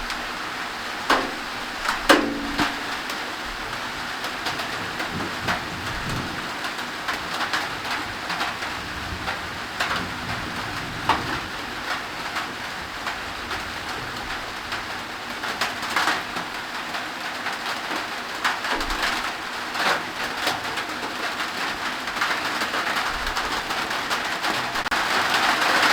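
Steady rain falling, with the sharper knock of heavier drops now and then, getting louder near the end. A dove coos about two seconds in.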